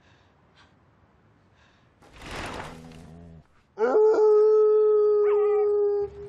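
A large hound howling: one long, loud howl that swoops up at its start, holds a steady pitch for about two seconds and then cuts off. About a second before it comes a brief rushing noise.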